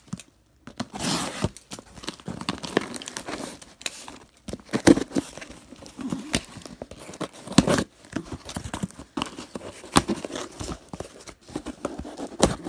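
Packing tape being ripped and cut open on a cardboard shipping box, with cardboard scraping and crinkling; irregular rips with a few sharp knocks.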